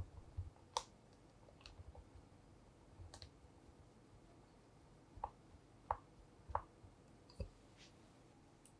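A spatula stirring cheesecake batter in a glass bowl, faint, with a few scattered light clicks as it knocks against the glass.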